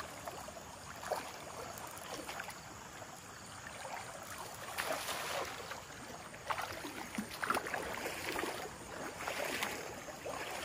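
Shallow water sloshing and splashing in irregular bursts as a person wades, with the swish of a cast net being handled.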